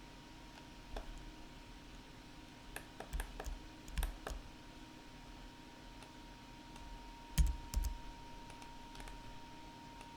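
Computer keyboard and mouse clicking in small scattered clusters a few seconds apart, over a faint steady hum.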